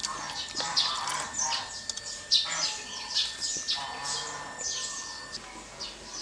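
Small birds chirping: many quick, downward-sweeping notes overlapping, with a thin steady high tone underneath that stops about five seconds in.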